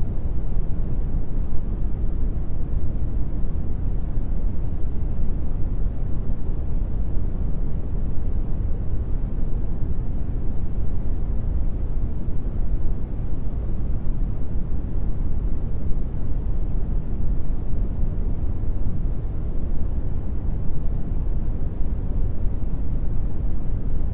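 Steady brown noise: an even, deep hiss, strongest in the low end and fading toward the top, unchanging throughout.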